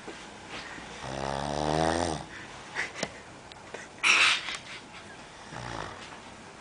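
A man snoring in his sleep: one long, pitched, rattling snore about a second in, then a short loud hiss a little after the middle.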